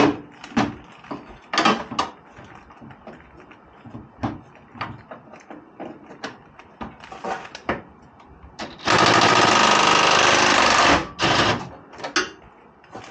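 Cordless impact wrench hammering steadily for about two seconds, starting about nine seconds in, breaking a bolt loose. Before it come scattered short clicks and clanks of tools and sockets on metal.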